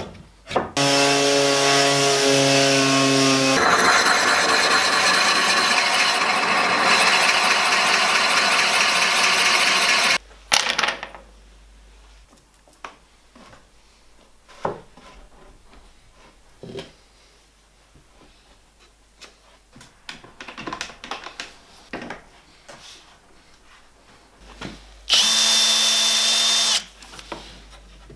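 Cordless drill spinning up with a steady motor whine, then boring into wood for about six seconds. This is followed by quiet knocks and clicks of handling, and near the end a second short run of the drill of about two seconds.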